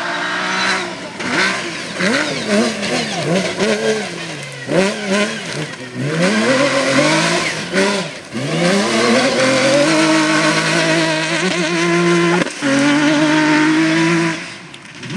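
Rally car engines revving hard. The pitch climbs and falls over and over as they accelerate, change gear and lift off, then holds at high revs for several seconds before dropping away near the end.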